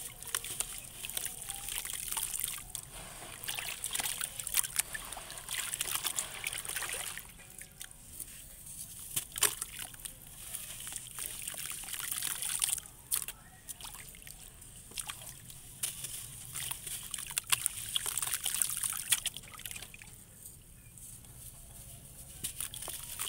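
Hands crushing soft, crunchy lumps of sandy clay in a basin of water: sloshing, trickling and splashing with a fine crackle and sharp clicks as the lumps crumble, coming and going in uneven spells.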